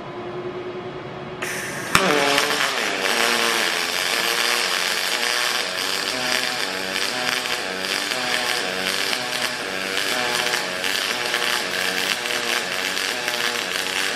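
HTP Revolution pulsed MIG welder running double-pulsed on aluminium: a steady hum, then the arc strikes with a sharp crack about two seconds in and runs on as a continuous buzzing hiss. Its pitch wavers up and down evenly as the current cycles between the high and low of the pulse.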